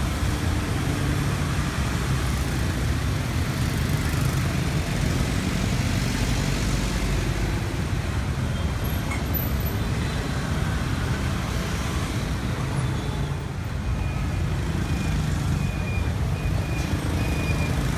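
Street traffic dominated by motorbikes and scooters, with cars and a city bus mixed in: a dense, steady rumble of many small engines and tyres. A faint high beeping repeats in the last few seconds.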